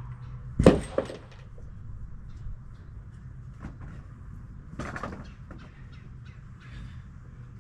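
Knocks and clatter of lumber being handled in deck framing work: a loud sharp clatter less than a second in, a second knock just after, and another bunch of knocks about five seconds in, over a steady low hum.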